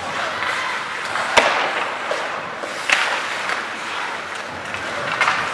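Ice hockey play: skates scraping and carving on the ice, with sharp knocks of stick and puck, the loudest about a second and a half in and another near three seconds.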